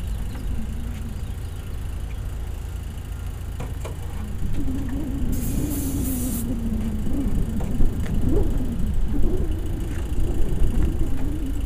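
An aerosol can of starting fluid hissing for about a second, sprayed into the aircraft engine about five seconds in, over a steady low rumble.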